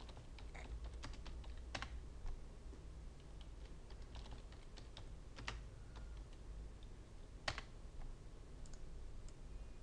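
Typing on a computer keyboard: scattered keystrokes, with a few sharper key clicks standing out.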